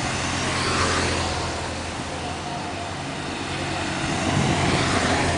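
Police motorcycles riding past close by one after the other, their engines running with a steady hum. The sound swells as each one passes, about a second in and again near the end.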